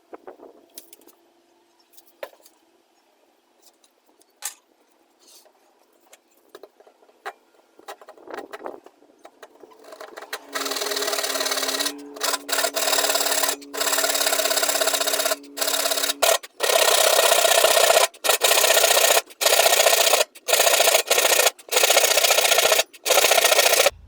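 Hand saw cutting through a pine slat. There are a few light knocks as the wood is handled, then from about ten seconds in come loud rasping back-and-forth saw strokes with brief pauses between them.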